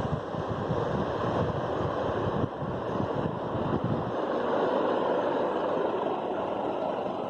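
Ventisol VT03 four-blade ceiling fan running, a steady rush of moving air with the fan's draught buffeting the microphone. The low buffeting eases about four seconds in.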